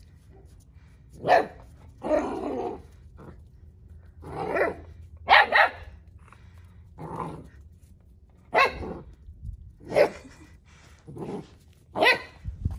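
Central Asian Shepherd puppies barking in about ten short, separate barks, irregularly spaced.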